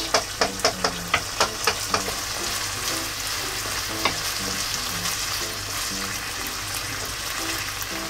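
Coarse ground beef and pork sizzling in a nonstick frying pan in a soy-based sauce that is cooking down over medium heat, with a steady hiss. A wooden spatula stirs it, knocking and scraping against the pan many times in the first two seconds and now and then after.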